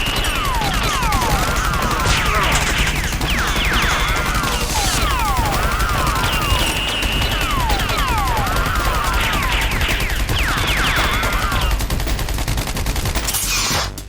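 Gunfire sound effect laid over the action: continuous rapid shooting with whistling, pitch-gliding bullet whizzes, repeating as a loop. It cuts off abruptly near the end.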